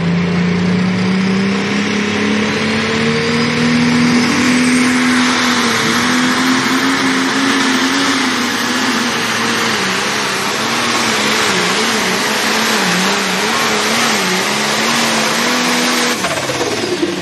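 Pro stock pulling tractor's diesel engine running flat out under the load of the sled. Its pitch climbs over the first few seconds with a faint rising whistle, then wavers up and down, and falls away suddenly near the end as the pull ends.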